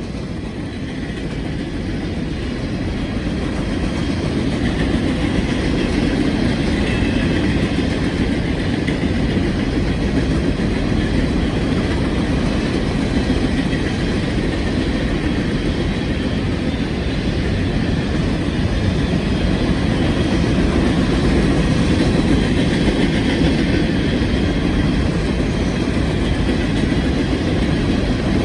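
CSX coke train passing: a steady rumble of diesel engines and wheels on rail, growing louder over the first few seconds and then holding steady.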